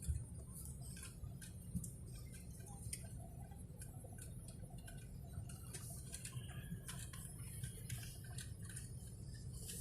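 Airliner cabin noise: a steady low drone, with faint irregular clicks over it.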